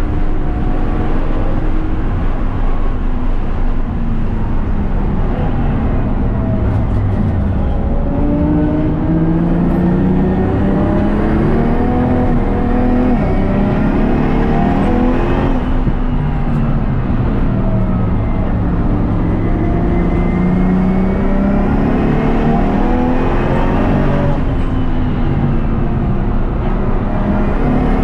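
BMW M4 race car's S55 inline-six, converted to a single turbo, run hard on track. The engine note drops for a few seconds, then climbs in long pulls through the revs, with sudden drops at the gear changes about halfway through and again near the end.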